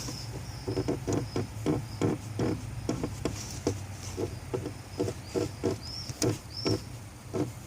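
Renault Sandero 2 clutch pedal squeaking in a quick, irregular string of short squeaks, about two or three a second, over a low steady hum. The pedal is jerking as it returns, which happens once the car is warm after about half an hour of driving.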